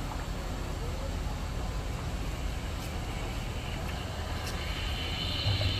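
A heavy vehicle's engine running with a steady low rumble over road noise. A high steady whine joins near the end.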